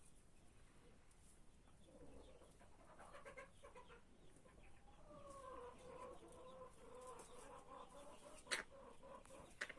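Faint chicken calls from Dominant-breed hens: short calls from about two seconds in, then a long, drawn-out call through the second half. A short sharp snap near the end is the loudest sound, with a smaller one just after.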